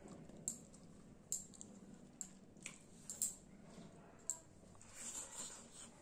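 Close-up wet chewing and lip-smacking of a mouthful of rice and curry eaten by hand, with sharp smacks every second or so and a longer squelchy stretch near the end.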